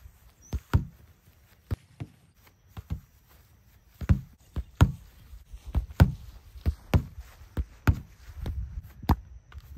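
Soccer ball kicked repeatedly against a ¾-inch plywood rebounder board: a dozen or so sharp thuds from the foot striking the ball and the ball hitting the board, often in quick pairs.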